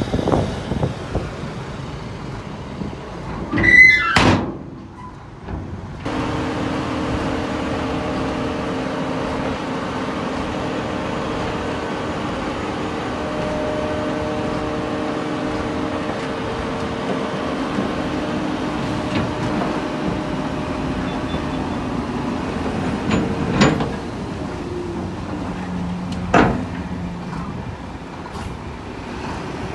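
Diesel engine of earthmoving machinery running steadily. A few seconds in there is a loud, brief metallic squeal, and a couple of sharp clanks come near the end.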